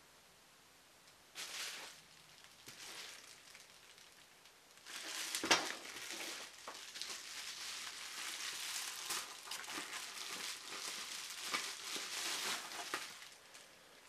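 Plastic bubble wrap crinkling and rustling as it is handled and opened. A short rustle comes first, then steady crinkling from about five seconds in, with one sharp snap just after, easing off near the end.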